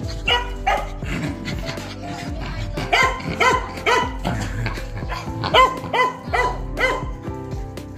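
Small dog barking in short, sharp barks: a run of three about three seconds in, then four more at about two a second near the end, over background music.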